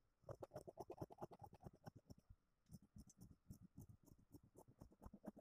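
Faint snipping of scissors cutting through folded blouse fabric: a long run of small, quick clicks.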